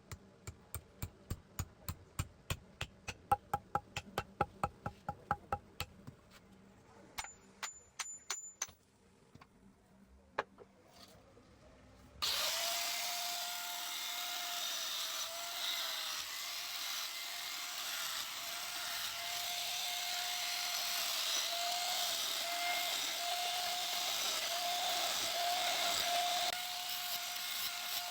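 Quick hammer blows on metal, about three a second and ringing, followed by a few scattered strikes. About twelve seconds in, an electric power tool starts abruptly and runs steadily with a slightly wavering whine.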